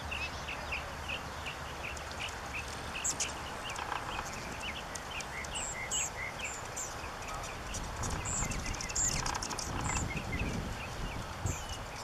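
Anna's hummingbird chirping: a run of short, high chips, several a second, that thins out after about seven seconds.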